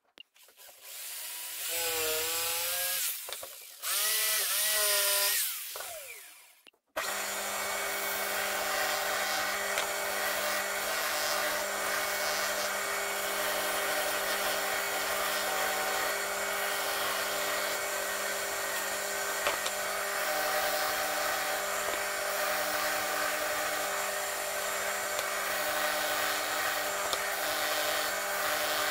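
Spindle sander running steadily, a wooden board pressed against its sanding drum: a constant motor hum under an even hiss of sanding. In the first seconds, before the sander starts, a power tool whines twice with a wavering pitch, then cuts off abruptly.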